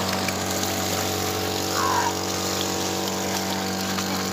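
Engine running steadily at an even pitch, a constant low hum. A brief higher gliding call cuts in about two seconds in.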